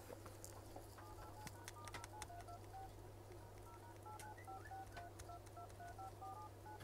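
An iPhone's dial pad sounding a quick, uneven run of short two-note keypad tones as digits are tapped in, checking that the touchscreen responds.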